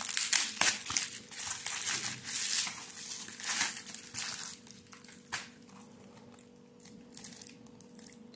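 Bubble wrap and a plastic sleeve crinkling as they are handled and opened by hand. The rustling comes in irregular bursts for about five seconds, then settles to quieter handling.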